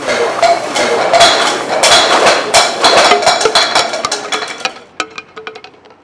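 Small stones clattering and knocking against each other in a dense, rapid rattle, which thins to a few scattered clicks about five seconds in and dies away.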